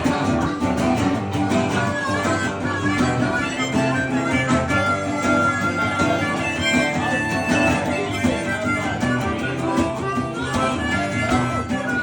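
Instrumental intro of an uptempo country song in G: strummed acoustic guitar with a harmonica playing the lead melody in long held notes.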